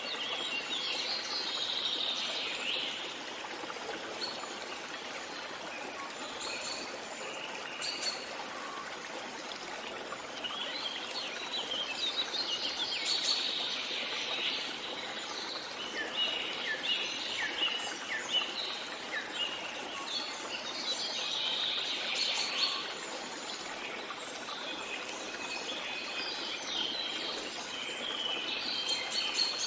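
Songbirds singing in bouts of rapid high chirps, over a steady rush of running water.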